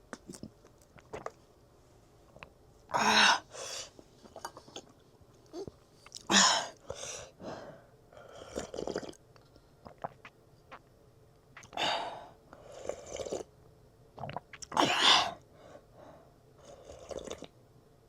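Close-miked eating sounds: a string of short, noisy mouth sounds of biting, chewing and slurping, about nine in all, the loudest about three, six and fifteen seconds in.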